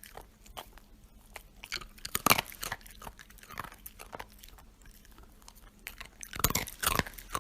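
A dog chewing and crunching hard treats: loud crunches about two seconds in and twice more near the end, with smaller clicks of chewing between them.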